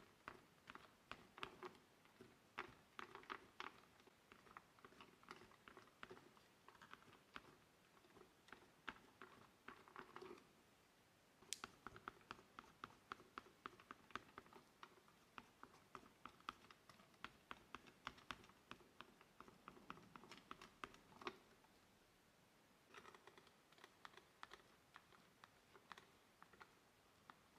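Faint, quick scratching strokes of oil pastel on paper, coming in runs of short strokes with brief pauses between them. There is one sharper click about eleven seconds in.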